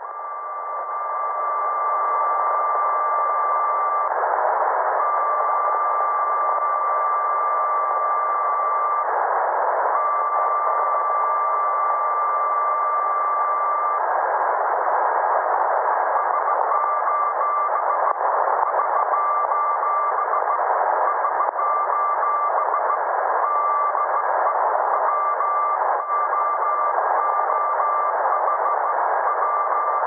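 Morse code tone from a ship's radio receiver in heavy static: three long dashes of about four seconds with one-second gaps, the automatic alarm signal sent before a distress call. A little past halfway, fast Morse keying begins: the distress call SOS SOS SOS followed by the ship's callsign.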